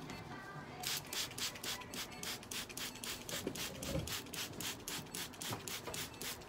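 A grooming brush stroked quickly through a cat's coat: even scraping strokes, about four or five a second, starting about a second in and stopping just before the end.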